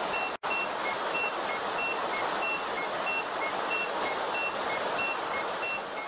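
Electronic two-tone alert beeps, alternating high and low at about three beeps a second, over a steady hiss of noise.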